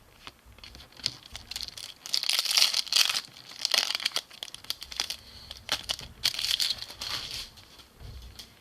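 Wrapper of a basketball trading-card pack crinkling and tearing as it is handled and opened, in irregular bursts, loudest about two to four seconds in.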